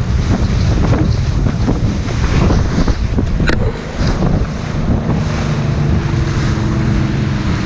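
Heavy wind buffeting on the microphone and water spray as an aluminum bass boat runs fast through chop, with the steady drone of its Evinrude E-Tech 150 two-stroke outboard coming through more clearly from about halfway in.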